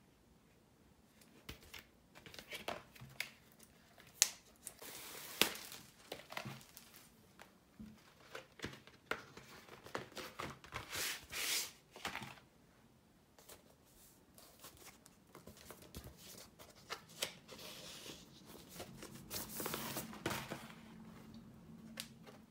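Paper and plastic record sleeves rustling and sliding as a vinyl LP and its inner sleeve are handled, in uneven swishes with small taps and clicks.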